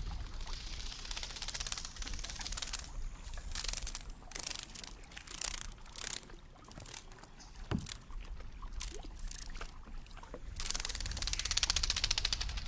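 Water splashing and lapping against a plastic kayak hull in irregular bursts, with a crackle of fine, rapid clicks. It grows louder near the end.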